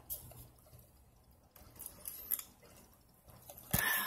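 A person chewing a mouthful of burger, with small wet mouth clicks and smacks. Near the end there is a louder thump and a short voiced mouth sound.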